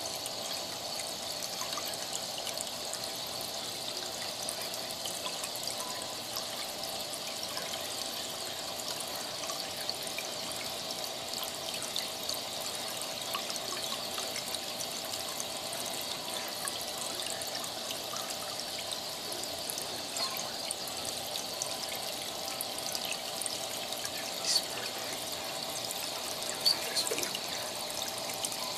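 Aquarium water trickling and splashing steadily at its churned surface. A few sharp clicks and splashes stand out near the end.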